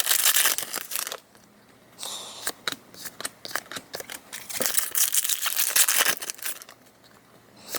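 Foil Pokémon booster-pack wrappers crinkling and tearing, with cards being handled. It comes in two spells of rustling with brief lulls between.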